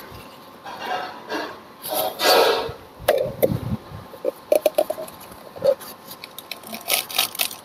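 A large machete chopping and shaving into the husk of a young coconut: irregular chops and cuts, with quick runs of sharp knocks in the second half.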